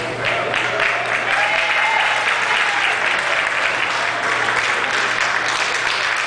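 Audience applauding, a steady clapping with some voices mixed in.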